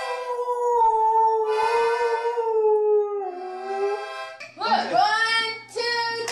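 A dog howling along to a small toy accordion: a long, held howl that slowly sinks in pitch and glides down near its end. About four seconds in, a cut brings a steady low hum and short, high, bending vocal sounds.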